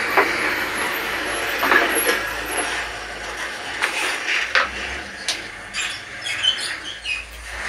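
A spoon clinking and scraping against a container as something is scooped out, several separate sharp clinks over a steady hiss.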